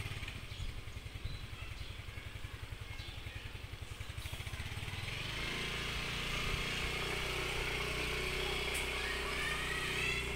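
A motor vehicle engine running outdoors, a low pulsing rumble that settles into a steady hum about five seconds in.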